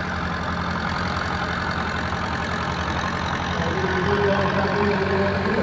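Farm tractor diesel engines idling and running slowly at low revs, a steady, low engine sound.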